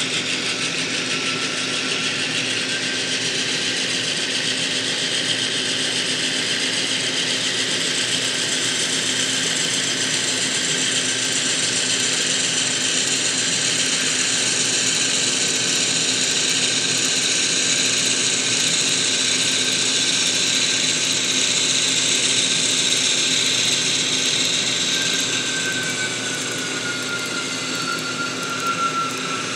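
N-scale model diesel locomotives running past, a steady whir of their electric motors and wheels rolling on the track, with a constant low hum under it. Near the end a thin tone slides down in pitch.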